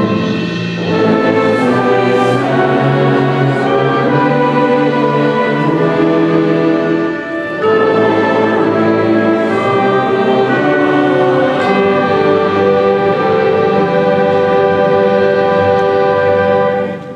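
A choir with orchestral accompaniment performing a slow classical piece in long held chords, with a brief break about seven seconds in. The final chord stops just before the end.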